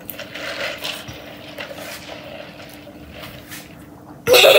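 Soft scattered rustling and handling noises over a low steady hum, then near the end a child's high-pitched voice cries out loudly, its pitch sliding.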